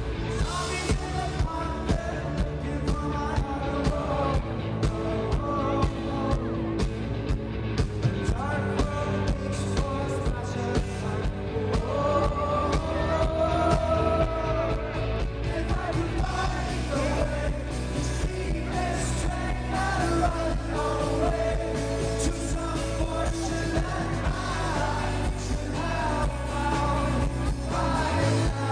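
Live rock band playing a song, a lead singer's voice carried over a steady drum beat, bass and guitars.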